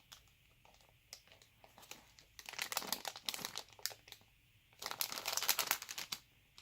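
Two spells of close crinkling and crackling as squishy toys are handled: one about two and a half seconds in and a longer one near five seconds, with a few faint clicks before them.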